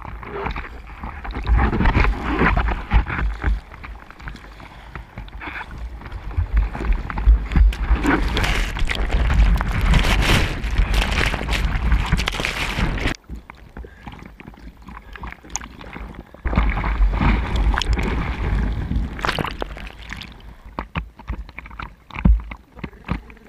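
Breaking wave and whitewash rushing and splashing over a bodyboard, heard close up as the water washes across the microphone. The loud rush stops suddenly about 13 seconds in, surges again a few seconds later, then eases to choppy water slapping.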